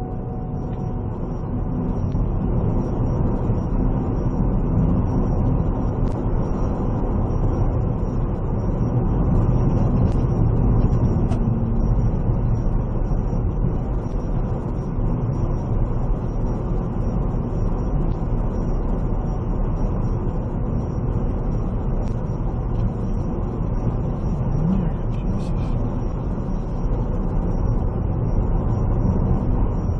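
Steady low rumble of a vehicle on the move, engine and road noise running evenly, with a faint high whine above it.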